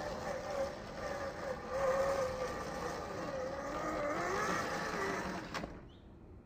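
Electric motor and gearbox of a 1/10-scale RGT Rescue LC70 RC rock crawler whining, the pitch wavering up and down with throttle as it climbs over rocks. A click comes about five and a half seconds in, and the sound cuts off suddenly.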